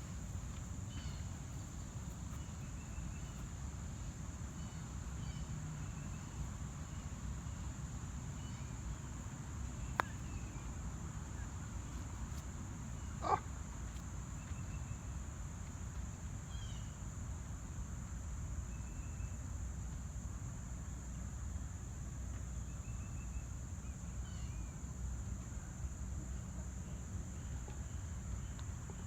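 Insects droning in one steady high-pitched tone, over a low rumble, with a sharp click about ten seconds in and a short knock a few seconds later.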